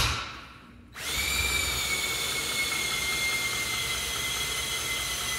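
Electric drill with a socket spinning the Dana 30 axle's pinion, turning the ring and pinion gears against the drag of a gloved hand to roll a gear-marking pattern onto the teeth. A short burst right at the start, then, after a brief pause, the drill runs steadily from about a second in.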